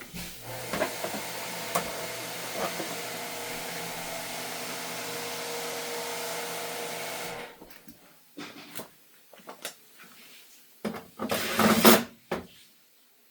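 An electric motor running steadily with a whirring hiss and low hum for about seven seconds, then cutting off abruptly. Scattered knocks follow, and a louder clattering rattle comes near the end.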